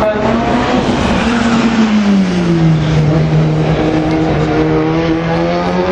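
Off-road race car engine running hard on the track, its pitch dropping about two seconds in as the driver comes off the throttle, then holding steady and starting to rise again near the end.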